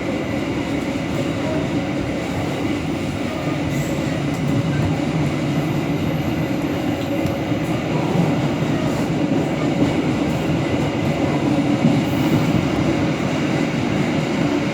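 A moving train heard from on board: a steady rumble of the carriage running along the rails.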